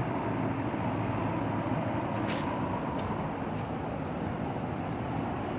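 Several air-conditioner condensing units running together in cooling mode: a steady hum of fans and compressors. A faint steady whine in it fades out about halfway through, and there is a brief tick about two seconds in.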